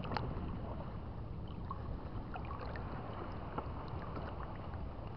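Sea water sloshing and swishing around a person wading waist-deep, with faint small splashes now and then.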